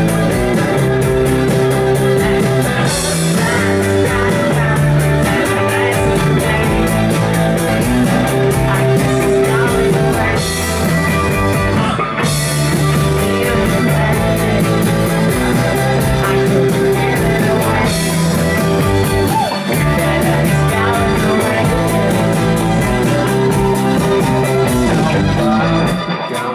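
A band playing a song live, continuous and loud, between sung lines. The music thins out abruptly near the end.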